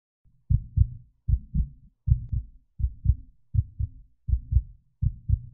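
Heartbeat sound effect: a steady lub-dub, each beat a pair of low, dull thumps, seven beats at a little under one and a half per second.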